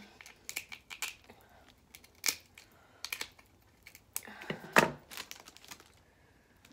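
Scissors snipping and cracking through snow crab leg shells: a string of sharp, irregular clicks and snaps, loudest about five seconds in.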